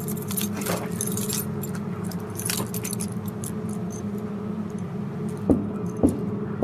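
A bunch of keys jangling and clinking, over a steady low hum; three sharp knocks come in the last second and a half.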